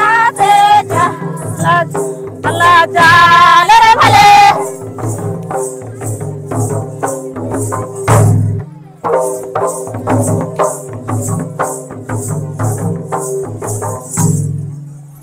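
Traditional Oraon dance music: voices singing a folk song over hand-played two-headed barrel drums, the singing stopping about four seconds in and leaving the drums playing a quick, even rhythm. A steady jingling beat runs above the drums throughout.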